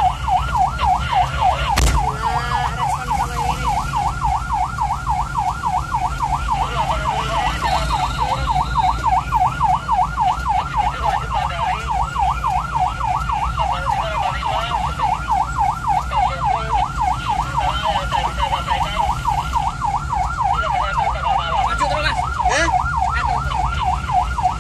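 Ambulance siren in a fast yelp, sweeping up and down about four times a second, heard from inside the ambulance's cab over a low engine rumble. There is a single thump about two seconds in.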